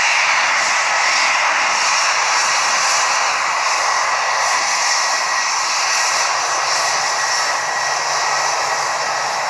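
Jet aircraft engines running loud and steady: a rushing roar with a high, steady whine held over it.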